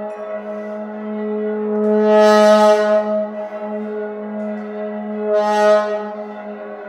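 Solo trombone holding one long low note at a steady pitch, swelling twice into a bright, brassy blare and falling back between, then fading near the end.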